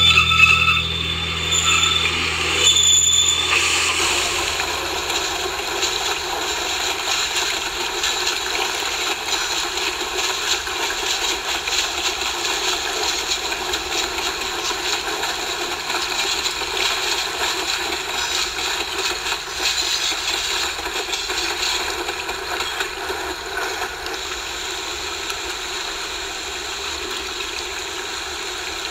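N scale model trains running on the layout's track: a steady whirring noise of small motors and wheels on rail. A low hum underneath stops about four seconds in.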